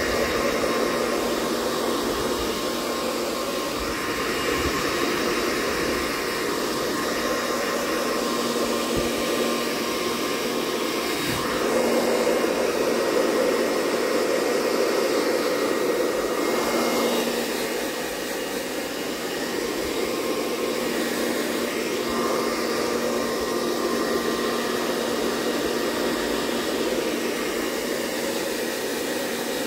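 Hair dryer blowing steadily: an even rush of air over a faint steady motor hum. It swells a little about twelve seconds in and dips briefly around eighteen seconds.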